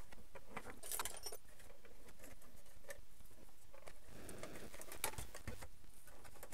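Small clicks, knocks and scraping of hard plastic as a 1/12-scale RC truck is handled and its plastic body shell is lifted off the chassis, with a louder rustle about a second in.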